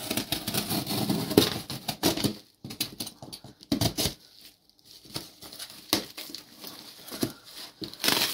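Knife cutting through packing tape and cardboard on a parcel: a run of irregular scraping, tearing and tapping noises with brief pauses.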